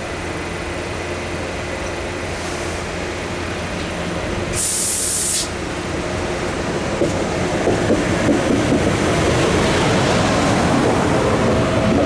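DB ICE high-speed electric train pulling slowly into the platform, its running noise growing as the front draws level. A short hiss comes about five seconds in, and a steady whine joins near the end.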